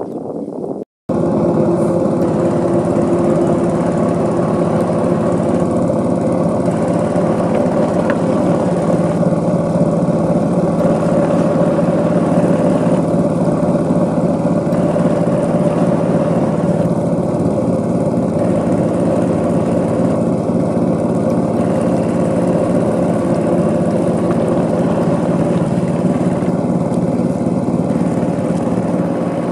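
Small wooden river ferry's engine running steadily under way, close and loud from on board, starting about a second in.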